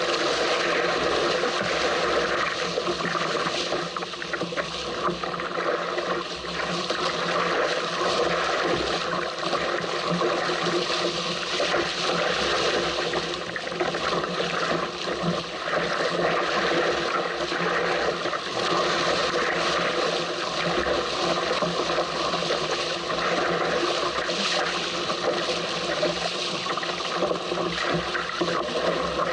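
Water rushing and splashing past the hull of a small sailing craft under way in strong wind, with wind buffeting the microphone; a steady, unbroken noise.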